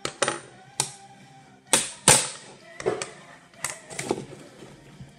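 A run of sharp plastic clicks and knocks as the black plastic front bezel of a DVD drive is prised off and parts are set down on a wooden tabletop, the loudest pair a little under two seconds in. Quiet background music underneath.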